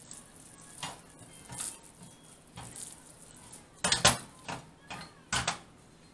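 Hands squishing and pressing raw ground meat on a metal plate, with the plate knocking and clinking against the gas stove's grate in a series of short, uneven sounds. The loudest come about four seconds in and again about five and a half seconds in.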